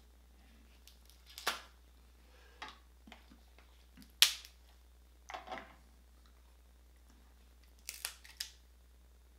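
Snow crab leg shells cracked and snapped apart by hand, in separate sharp cracks: one about a second and a half in, the loudest about four seconds in, and a quick crackling cluster near the end.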